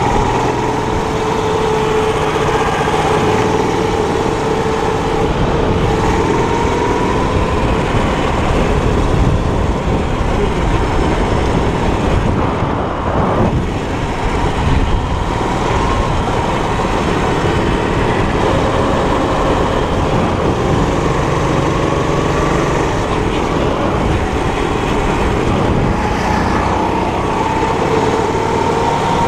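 Four-stroke 270 cc kart engine running hard through a lap, its pitch rising and falling slowly with the corners over wind and track noise. The revs dip briefly about halfway through.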